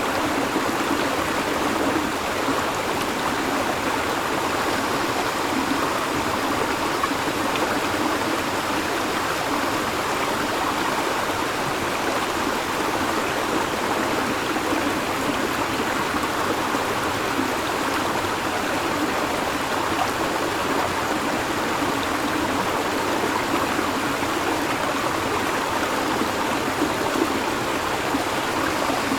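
River water flowing and babbling steadily over rocks, an even rushing wash with no breaks.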